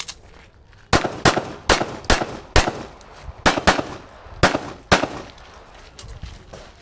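Handgun fired rapidly: about ten shots over roughly five seconds, mostly in quick pairs with short pauses between them, each with a short echo.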